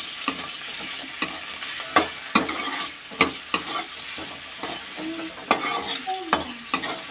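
Steel ladle scraping and knocking against a metal karahi while stirring potato cubes in hot oil, in irregular strokes over a light sizzle of the potatoes frying.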